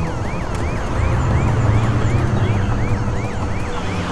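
Police car siren on a fast yelp: about three quick sweeps a second, each rising and then falling. A low vehicle rumble runs underneath and swells about a second in.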